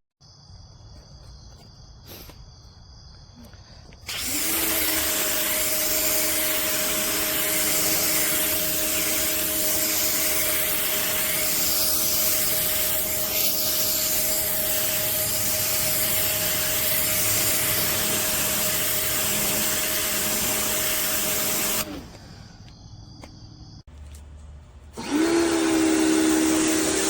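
Compact electric pressure washer's motor and pump starting with a quick rise in pitch, then running with a steady hum and hiss of spray. It cuts out after about eighteen seconds and starts up again about three seconds later.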